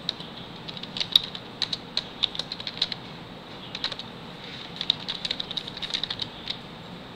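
Typing on a computer keyboard: irregular runs of key clicks with short pauses between them.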